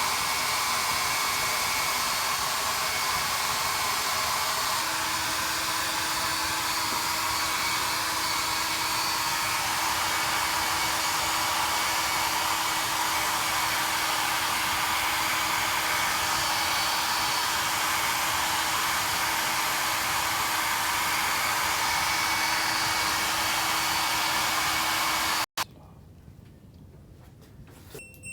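Hair dryer blowing steadily, drying water off a front-load washing machine's wet control board. It is switched off abruptly near the end.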